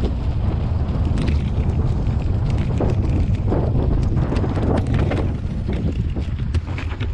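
Mountain bike rolling fast over a dirt singletrack: a steady low rumble of wind buffeting the camera microphone, with the tyres crunching over dirt and leaves and frequent sharp clicks and rattles from the bike jolting over bumps.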